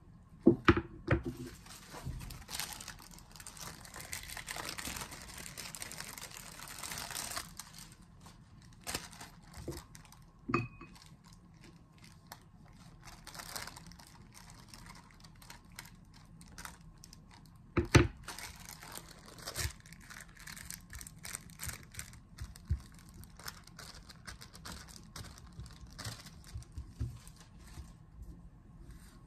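Kitchen handling sounds: a silicone pastry brush spreading melted butter over chapati, with plastic sheet crinkling and rustling about two to seven seconds in, and a few sharp knocks on the wooden board and bowl, the loudest near the start and about eighteen seconds in.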